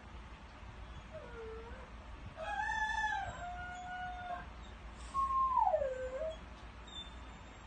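Dog crowing like a rooster, a howl-like call in three parts: a short soft note, then a long note that rises, falls and holds steady for about two seconds, then a loud call that slides downward.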